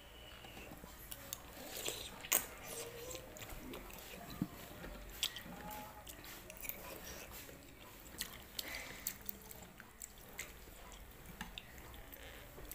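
Close-miked mouth sounds of a person eating macaroni soup from a spoon: chewing and wet mouth noises, with many short sharp clicks scattered throughout.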